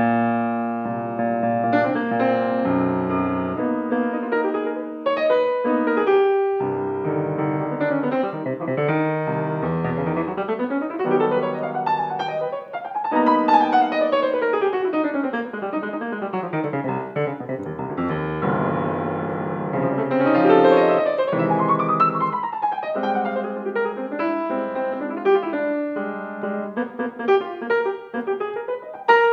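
Piano music, with several fast runs sweeping up and down the keyboard.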